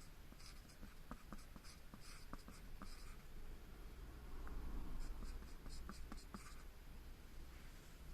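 Writing on paper: short scratchy strokes in two bursts with a pause between them. A soft low rumble sounds in the pause.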